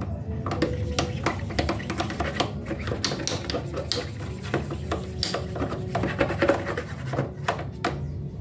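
Rubbing and scraping on a zebra dove cage as it is cleaned: a quick, uneven run of rasping strokes and small knocks.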